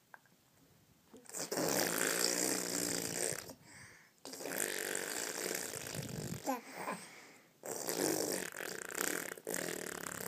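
Loud snoring: about four long, noisy snores of roughly two seconds each, starting a little over a second in.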